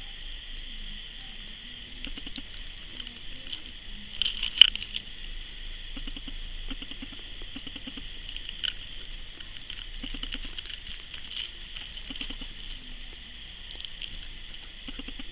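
Kittens lapping milk: many small wet clicks and smacks in quick, uneven runs over a steady hiss, with one sharper, louder click about four and a half seconds in.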